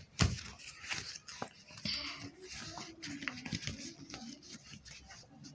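A sheet of A4 paper being handled and folded by hand: irregular rustling and crackling of the paper as it is pressed and creased, with one louder knock about a quarter second in.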